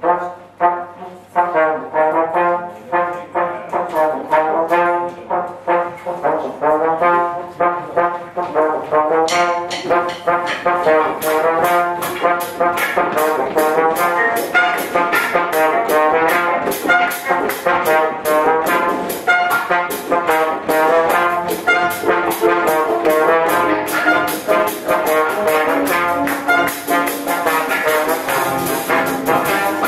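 A live brass-led band plays. Trombone, trumpets and tuba carry the tune over keyboard, electric guitar and drums. The music starts suddenly, and a steady drum beat with cymbals comes in about eleven seconds in.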